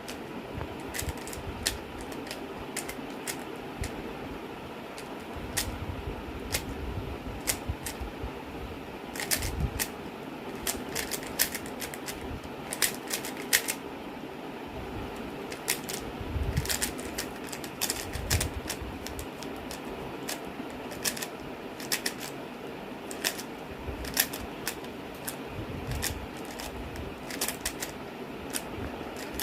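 Rubik's cube being turned by hand in a timed solve: its plastic layers click and clack irregularly, with quick flurries of turns between short pauses.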